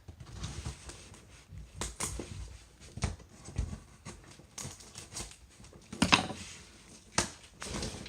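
Cardboard box being handled and pried open by hand: irregular scrapes, taps and rustles of cardboard and packing tape, with a louder burst about six seconds in.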